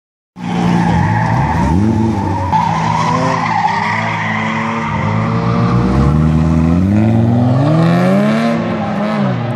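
BMW E30 engine revving up and down hard as the car drifts, with tyres skidding and squealing on the pavement. The revs climb and fall several times, with a long climb in the second half that drops away near the end.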